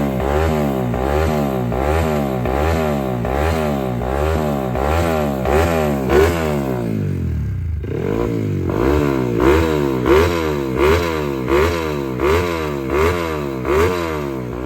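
Yamaha WR competition bike's single-cylinder engine being revved over and over, its pitch rising and falling about one and a half times a second. A little past halfway the revs drop briefly, then the blipping resumes with sharper peaks.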